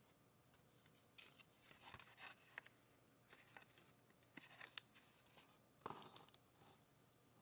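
A cardboard candy box being handled over a chocolate tray. Faint scattered rustles and light taps, with a sharper knock about six seconds in.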